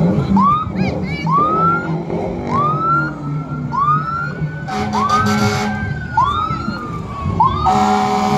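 Emergency vehicle sirens: one sweeps up in pitch about once a second while a second wails slowly up and down. Two short horn blasts sound, one about five seconds in and one near the end.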